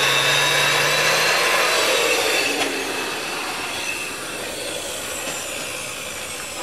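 Small handheld power saw cutting a groove in a concrete patio slab along a metal guide bar, a steady grinding whine. About a second and a half in, the cutting stops and the saw's sound dies away over the next couple of seconds.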